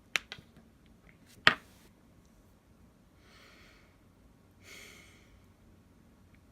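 A couple of light clicks and one sharp tap of small objects handled on a work surface, then two audible exhaled breaths, like frustrated sighs.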